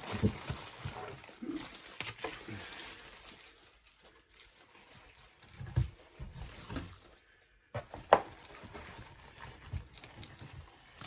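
Packaging being handled while a speaker is taken out of its box: rustling and scraping with scattered knocks, the loudest about eight seconds in.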